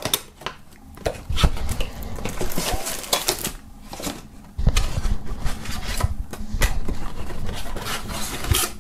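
Thin cardboard box being slid open by hand, with irregular scraping, tapping and rustling as the lid comes off and the contents are pulled out and set on a wooden table.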